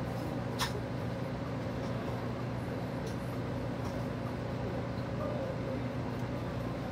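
Steady low hum of commercial kitchen equipment such as the ventilation, with one sharp click about half a second in.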